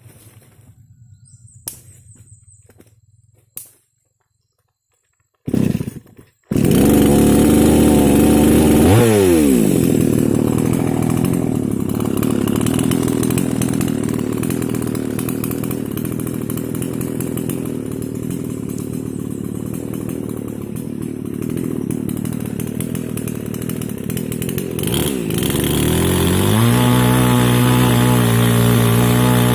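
Small two-stroke mini chainsaw engine starting up about six seconds in, after a short burst, then running loudly. Its revs fall away about three seconds after it catches and it runs unevenly at a lower speed, then it revs up near the end and holds a steady, higher pitch.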